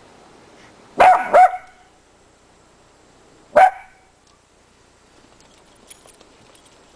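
Miniature dachshund barking: a quick double bark about a second in, then a single bark about two and a half seconds later.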